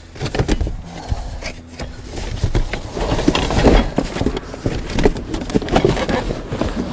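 Rummaging through a cardboard box of parts: cardboard rustling and flapping, with parts knocking against each other and the box in a quick, irregular run of knocks, busier in the second half.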